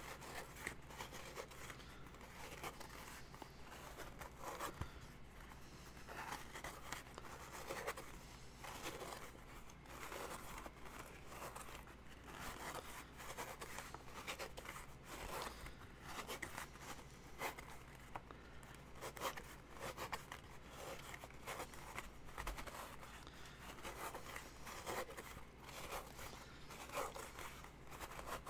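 Foam being sanded: irregular scratchy, rasping strokes of abrasive rubbing the foam of a costume piece, thinning it down so it fits.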